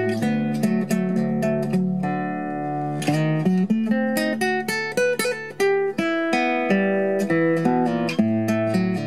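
Nylon-string classical guitar played fingerstyle: a quick run of plucked melody notes over ringing bass notes, in the lilting style of a Brazilian choro.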